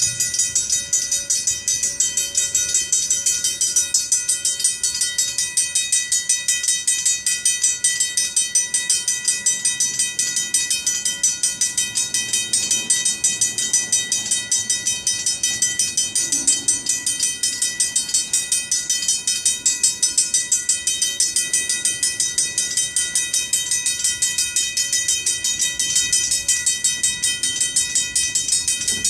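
Griswold mechanical grade-crossing bells ringing in rapid, steady strokes, the crossing still active. A slow freight train rolls by faintly underneath.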